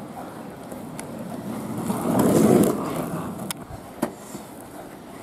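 Skateboard wheels rolling over rough asphalt under a homemade surf-skate (a small surfboard duct-taped onto a skateboard deck), a steady rumble that swells louder about two seconds in, with a few sharp clicks from the board.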